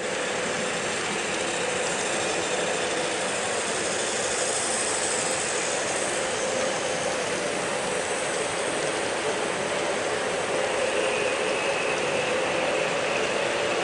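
HO scale model passenger train with dome cars running along the track, a steady mechanical whir from its wheels and drive.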